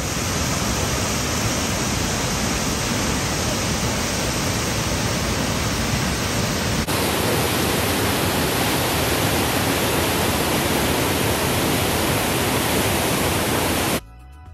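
Johnston Canyon Upper Falls: the steady rush of a tall waterfall pouring down the canyon wall. About halfway through it changes abruptly to a fuller, deeper rush, and it cuts off suddenly near the end.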